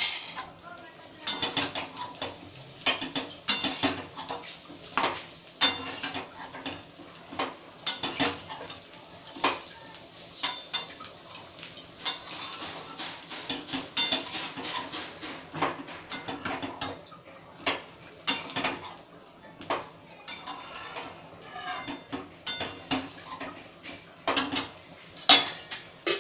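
Long metal spatula scraping and clanking against a metal kadai as cooked fried rice is stirred and turned, in irregular knocks about once or twice a second.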